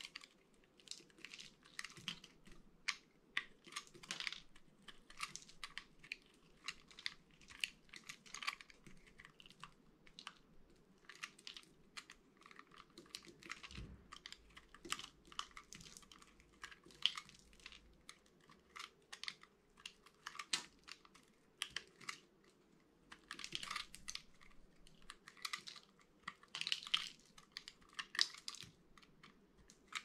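A snap-off utility knife blade shaving and cutting a bar of dry soap: quick, irregular, crisp crunching scrapes as curls and flakes break off, with denser runs of crackling in the last third.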